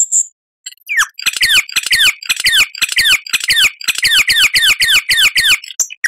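Lyrebird singing: a short high note, then from about a second in a quick run of whistled notes, each sliding down in pitch, about three to four a second.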